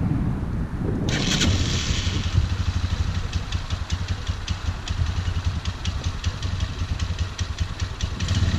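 A Tornado 250cc Chinese ATV engine catching about a second in and then running at idle with an irregular ticking and popping. The engine is hard to start; the owner thinks the old gas from the shed may be to blame.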